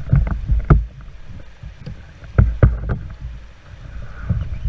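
Canoe paddle strokes splashing and knocking, in two quick clusters near the start and about two and a half seconds in, over the rush of moving water and a low rumble of wind on the microphone.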